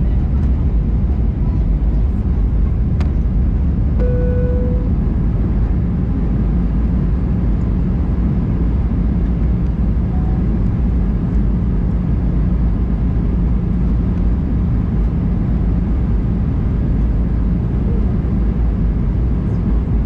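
Steady cabin noise inside an Airbus A319 in flight: the low, even rumble of the jet engines and the airflow over the fuselage. About four seconds in, a short steady tone sounds once.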